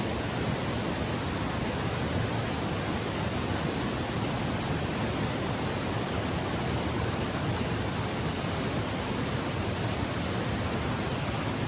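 Steady, unchanging rushing noise, spread evenly from low to high pitches, with no separate events.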